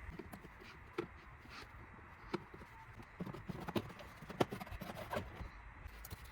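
Faint, irregular metal clicks and light knocks, about six of them, as brake caliper parts, pads and tools are handled during a brake pad change.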